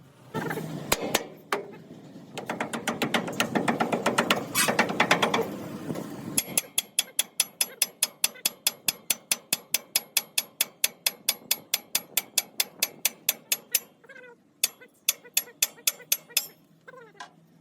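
Quick metallic tapping: a dense, uneven run of strikes for about six seconds, then an even run of about five ringing taps a second for some eight seconds, and a few more near the end.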